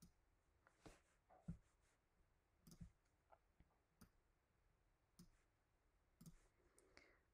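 Faint computer mouse clicks, about eight of them, short and irregularly spaced, as elements are selected and dragged.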